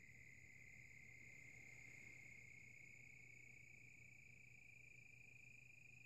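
SilverStone SX600 SFX power supply fan rattling as it slows down, heard as a faint, steady, high-pitched buzz whose pitch creeps slightly upward. The owner doubts this rattle is normal.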